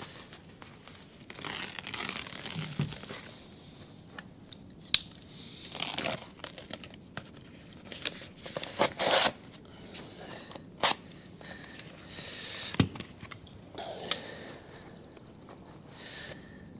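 Self-adhered ZIP System flashing tape being unrolled onto a window sill, its paper release backing peeling off and crinkling in short, irregular tearing rustles, with a few sharp clicks and taps.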